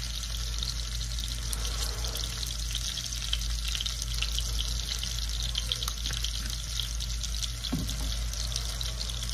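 Half-and-half sauce heating in a pan on the stove: a steady sizzle with small crackles and a low hum underneath.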